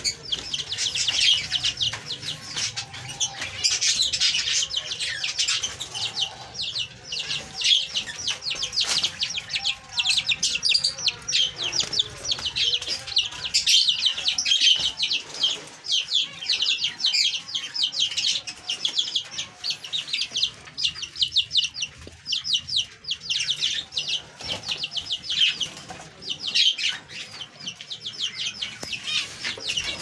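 A flock of small cage birds chirping rapidly and without pause, many high calls overlapping.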